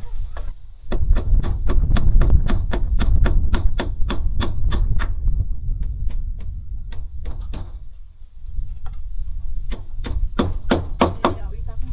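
Hammer blows, a fast run of sharp knocks at about three to four a second, then a few scattered ones and a second quick flurry near the end, over a steady low rumble.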